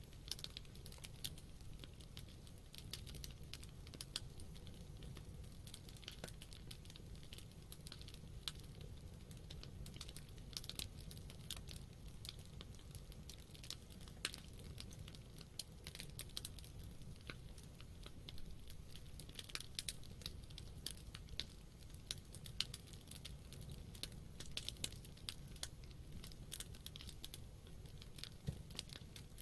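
Campfire burning, with the wood crackling and popping in quick, irregular snaps over a soft low burning noise.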